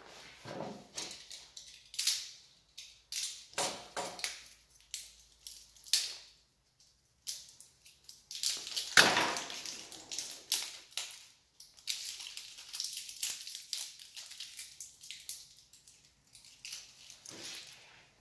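Hands crinkling and tearing small plastic packaging, with irregular crackles, rustles and small clicks and a sharp knock about nine seconds in.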